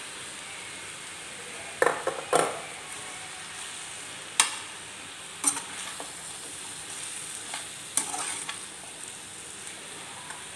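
Chopped bottle gourd sizzling in oil in a stainless steel frying pan while a slotted steel spatula stirs it, knocking and scraping against the pan about five times over a steady hiss of frying.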